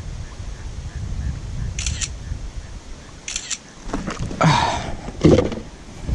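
Phone camera shutter sound twice, each a quick double click, over low wind rumble on the microphone. About four seconds in come louder knocks and rustles of handling.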